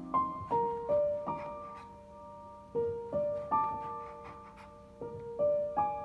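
Background solo piano music: a slow, gentle melody of single notes, each ringing and fading before the next.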